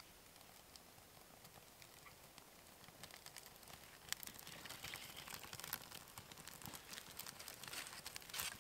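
Lit birch bark catching and crackling in a stone fire ring: faint at first, then from about three seconds in a growing run of small sharp crackles and snaps. Near the end dry twigs rustle as they are gathered to lay on the flame.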